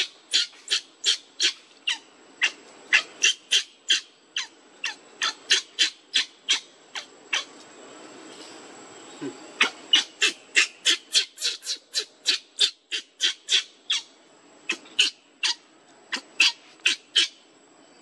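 Baby macaque crying in a rapid string of short, high-pitched squeals, about three a second, with a pause of about two seconds partway through.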